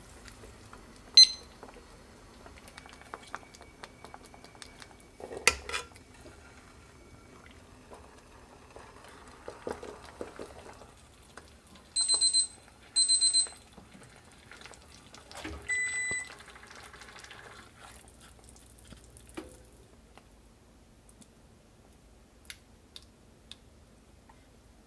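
Two short electronic beeps about a second apart, the loudest sounds here, with a fainter beep a few seconds later. Scattered clinks and knocks of stainless pots, bowls and utensils come in between.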